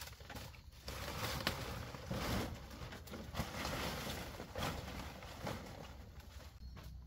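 Palm fronds rustling as they are handled and pushed into place, with a few light knocks; the rustling grows louder about a second in and eases off near the end.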